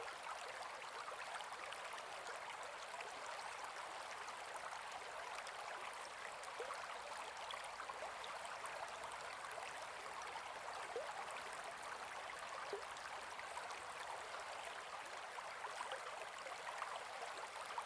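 A gentle forest river flowing steadily, its water running and babbling, with faint small splashes scattered through it.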